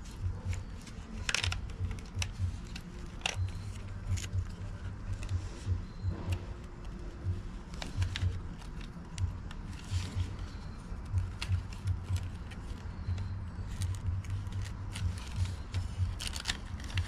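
Hands working a hook-and-loop strap around a plastic bicycle helmet: scattered small clicks, scrapes and rustles of strap and helmet shell, over an intermittent low rumble.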